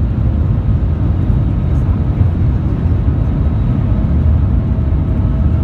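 Shanghai Maglev train running at speed, heard from inside the passenger cabin as a loud, steady low rumble. A faint steady tone joins near the end.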